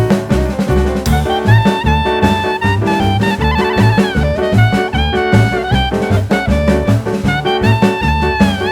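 Background jazz music: a saxophone or brass line playing held, sliding notes over bass and a drum kit beat.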